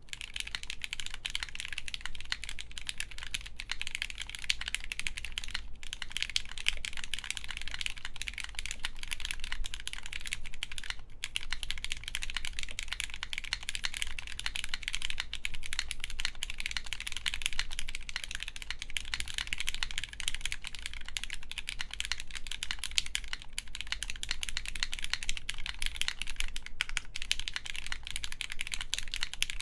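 Continuous fast typing on a Zero-G Great Sword mechanical keyboard with lubed Gateron X switches, FR4 plate, CRP R4 keycaps and no foam: a dense stream of key clicks with brief pauses about 6 and 11 seconds in.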